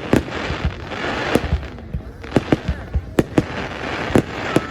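Fireworks going off: about ten sharp bangs at irregular intervals over a continuous crackling hiss.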